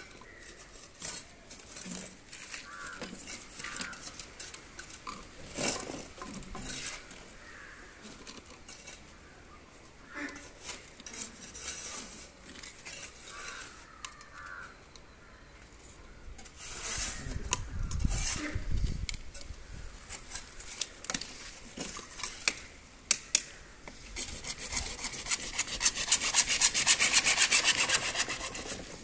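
A hacksaw blade cutting through PVC pipe in quick, even back-and-forth strokes during the last few seconds, the loudest sound here. Before it come scattered clicks and knocks of PVC fittings and tools being handled, with a brief low rumble around the middle.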